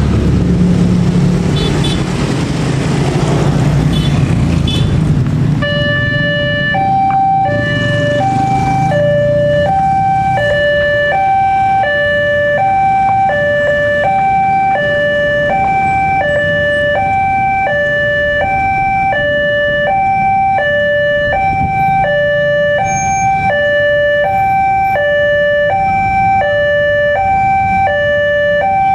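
Railway level-crossing warning alarm sounding a two-tone electronic chime, the high and low notes alternating about twice a second, starting about six seconds in. Under it runs the engine noise of waiting motorcycles and traffic, loudest before the alarm begins.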